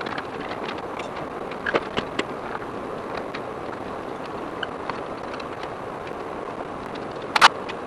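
Fast-forwarded workshop sounds from an engine being fitted into a car chassis: a steady hiss dotted with quick clicks and knocks, with one louder clank near the end.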